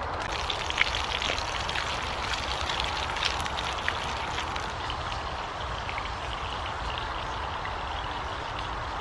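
Burger patties sizzling in a frying pan over a wood-fired Bushbox XL stove: a steady hiss, with a few sharp pops from the burning wood in the first half.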